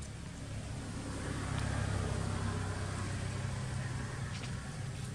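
A motor vehicle's engine running steadily with a low hum, getting louder over the first two seconds and then holding.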